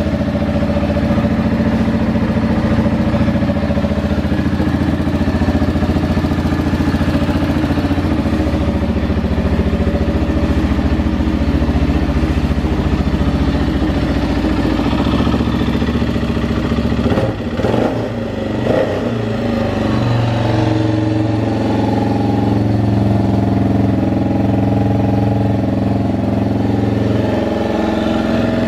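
A 2013 Arctic Cat Mud Pro 700 ATV engine, a single-cylinder four-stroke, running steadily as a running check of a salvage engine. About two-thirds of the way through its note briefly breaks and dips, then it runs on at a slightly different steady speed.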